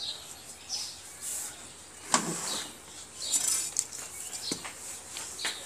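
Small birds chirping, with a few dull knocks from work at the base of a bamboo post; the loudest knock comes about two seconds in and another a couple of seconds later.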